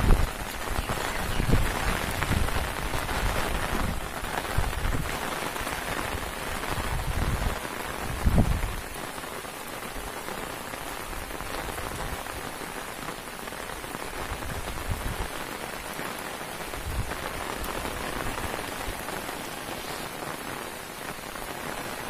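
Steady rain hissing as it falls, during a cyclone's wind and rain. For the first nine seconds or so, low buffeting gusts of wind hit the microphone, the strongest about eight seconds in, after which only the even rain hiss remains.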